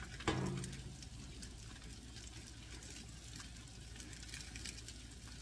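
One knock just after the start, then the steady low rushing of a gas grill with faint, scattered crackles of chicken thighs and legs sizzling as marinade is brushed on.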